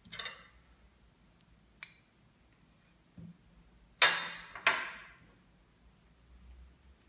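A drinking glass, used as a round bread cutter, knocked down twice on a hard tabletop about four seconds in: two sharp clinks half a second apart, each ringing briefly. A short scrape at the start and a single light click come before them.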